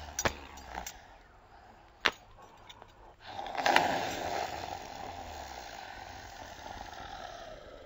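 Leather belt lashes: two sharp cracks early, then a louder rushing whoosh about three and a half seconds in that trails off slowly.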